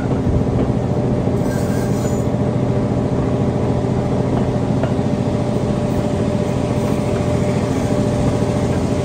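A heritage passenger train running along the track, heard from the side of a wooden carriage: a steady rolling clatter of the wheels on the rails with a steady drone underneath.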